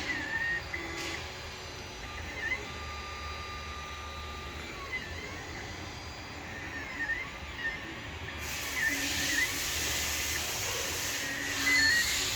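A 3D printer running, its stepper motors whining in short falling-then-rising pitch sweeps as the print head moves, over a steady low hum. About eight seconds in, a steady hiss comes in as well.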